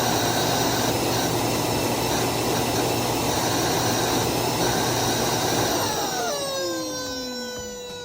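Roomba s9 Clean Base auto-empty dock's suction motor running while it empties the robot's bin, then winding down with falling whines from about six seconds in and stopping near the end. The bad noise comes from a dog-toy squeaker lodged in the bin.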